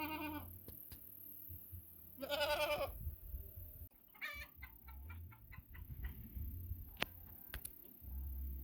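Farm animals calling: a long wavering call about two seconds in, then a quick run of short calls, and a couple of sharp clicks a little later.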